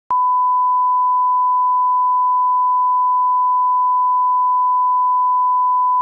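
Broadcast line-up test tone: a single steady pure beep held unbroken at one pitch, the reference tone that goes with colour bars for setting audio levels.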